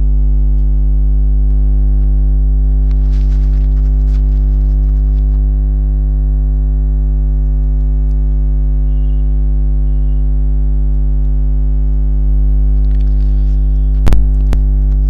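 Loud, steady electrical mains hum on the recording, a low buzz with a stack of overtones. Two sharp clicks come about half a second apart near the end.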